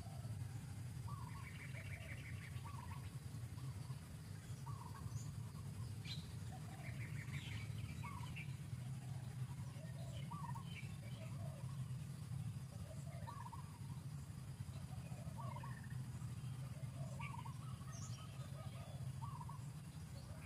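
Forest birds calling: short chirps repeated every second or two, with a fast trill about two seconds in and again about seven seconds in, over a steady low rumble.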